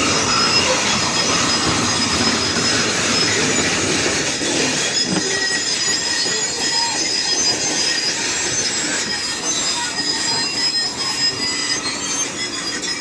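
Tracked excavator moving, its steel tracks squealing and grinding steadily, with high metallic squeaks.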